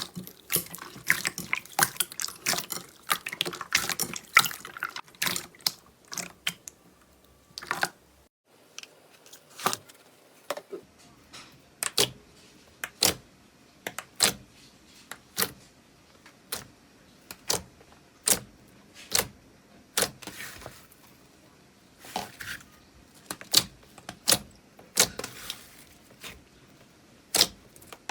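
Slime being squished and handled, making wet clicks and pops: a dense crackling run for about the first eight seconds, then single pops roughly once a second.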